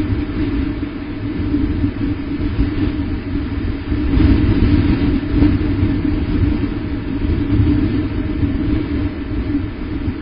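Wind buffeting the outdoor nest camera's microphone: a steady low noise that swells and fades, loudest around four to six seconds in.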